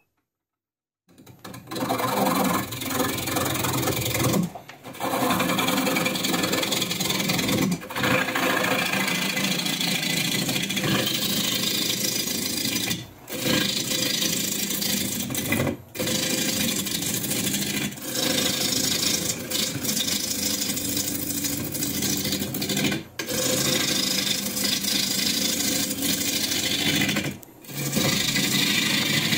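A turning gouge cutting into a spinning walnut log on a wood lathe: a continuous scraping, rasping cut as the log is rough-turned round. The cut starts about a second in and breaks off briefly about six times.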